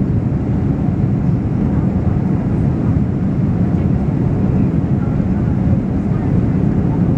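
Steady low rumble of a Boeing 767-300ER's engines and airflow heard inside the passenger cabin, even in level, with no sudden thumps.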